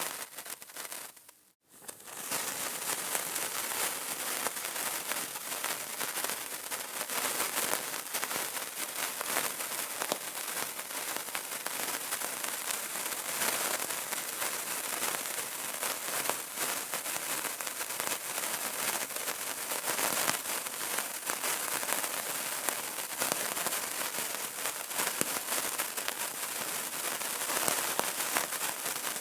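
Burning candle crackling: a steady, dense patter of tiny pops and clicks. It cuts out briefly about one and a half seconds in, then resumes.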